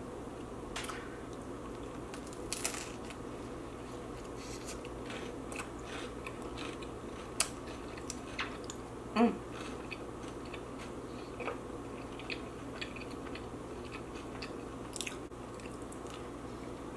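Close-miked eating: a mouthful of pineapple eaten together with another food, bitten and chewed with crunching and scattered wet clicks. A brief rising vocal sound comes about nine seconds in.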